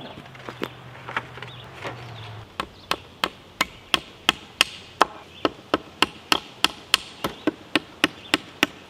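Hammer driving small nails into a thick wooden board. A few light taps come first, then steady strikes about three a second from about two and a half seconds in, and a low hum stops as the steady hammering begins.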